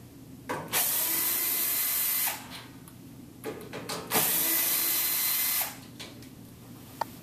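Power drill running in two steady bursts of about a second and a half each, most likely driving out the screws that hold the washer's back panel.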